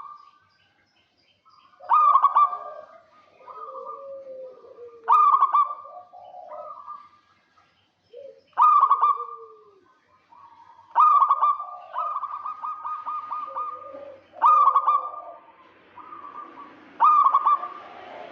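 Zebra doves (perkutut) cooing: a loud, rolling, trilled phrase about every three seconds, six times in all, with softer coos in between.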